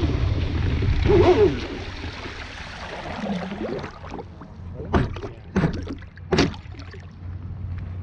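Water rushing and spraying past an RC boat's hull as it drops off the plane with its motor stopped, loudest in the first second and a half, then gurgling and sloshing as it settles. Three short sharp slaps of water against the hull come in the second half.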